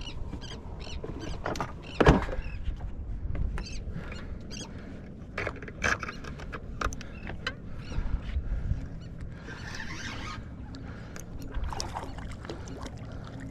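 Scattered clicks and small knocks of gear being handled aboard a small fishing boat, with one sharp, louder knock about two seconds in, over a steady low background of boat and water.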